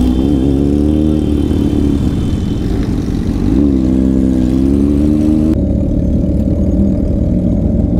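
Motorcycle engine running hard under way, its pitch climbing as it accelerates, dipping and rising again about three and a half seconds in. A hiss above it cuts off suddenly about five and a half seconds in.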